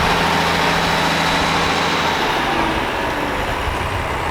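A large motor vehicle's engine running steadily as it moves along the parade route, its low hum fading about halfway through over a steady background din.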